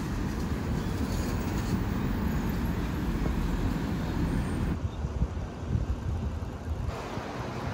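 Street traffic noise, steady and without a clear single vehicle, changing abruptly about five seconds in and again about two seconds later.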